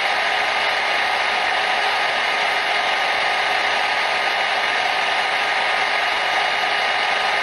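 Hair dryer running steadily: an even rushing fan noise with a faint steady whine.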